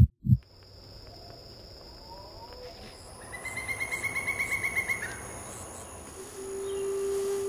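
A heartbeat-like double thump at the very start, then outdoor ambience of insects buzzing and crickets chirping with bird calls, including a rapid trill in the middle. A steady low hum tone comes in near the end.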